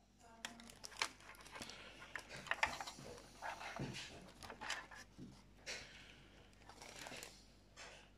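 Close handling noise: hands fiddling with small plastic parts and wiring, an irregular run of clicks, taps and rustles.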